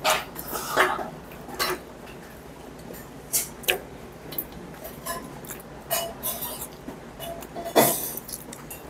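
Eating at a table: short sips and mouth noises, with occasional clinks of a spoon and chopsticks against brass bowls. The sounds come singly every second or two, the loudest near the end.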